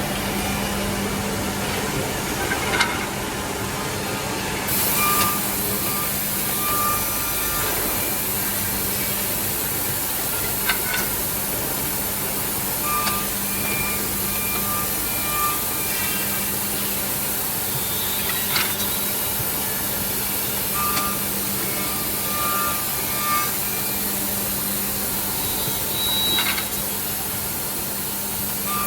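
Two-head CNC oval tenon milling machine running, with a steady hum. A knock and a short run of high tones repeat about every eight seconds as it works through its cycle.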